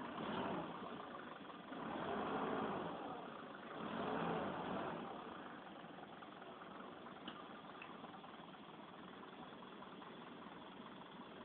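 Vehicle engine revving up and down three times in the first five seconds, then running steadily and faintly.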